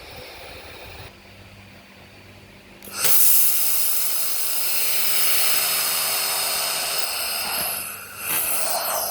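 Handheld laser welder firing in fish-scale welding mode: a loud, steady hissing buzz starts about three seconds in and runs for about five seconds, stops briefly, then starts again for about a second near the end. Before it there is only a faint steady hum.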